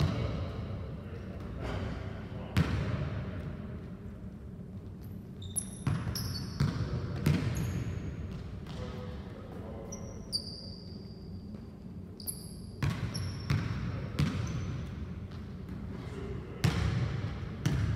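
A basketball dribbled and bounced on a hardwood gym floor, thumps at an irregular pace, with short high sneaker squeaks as the players cut and stop. The thumps echo in the hall.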